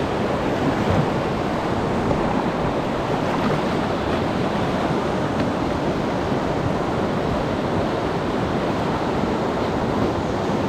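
Whitewater rapid rushing steadily, heard close up from a kayak at the water's edge.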